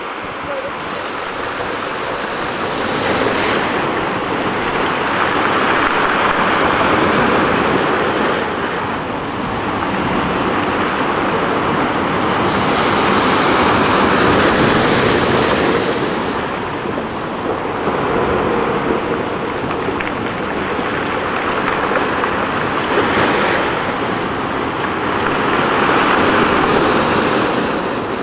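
Ocean surf breaking and washing over a rocky shore: a continuous rushing that swells and eases in long surges every several seconds.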